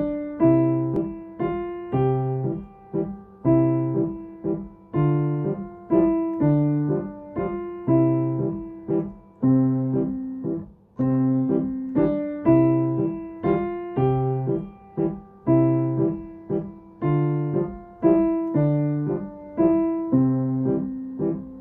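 Yamaha piano playing a simple waltz in three-time. A bass note on the first beat of each bar is followed by lighter notes, about one bar every one and a half seconds. A final chord is held and fades out near the end.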